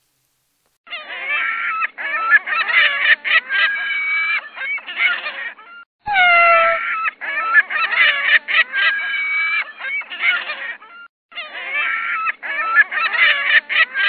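A flock of gulls calling: many overlapping, gliding cries in blocks of about five seconds, broken by sudden complete silences. The sharp cut-offs suggest an edited-in recording.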